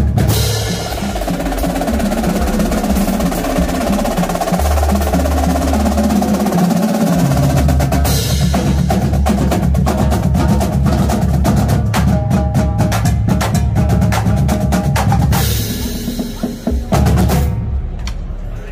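Marching drumline playing a cadence: snare drums, tenor drums, bass drums and crash cymbals together, with rolls and driving beats. A loud cymbal-heavy hit comes about sixteen seconds in, and the playing stops near the end.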